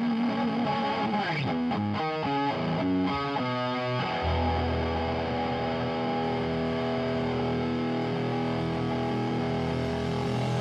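Electric guitar through effects and light distortion, opening a song: a wavering held note, then a line of single notes stepping about twice a second. About four seconds in, a deep low note joins under a held chord.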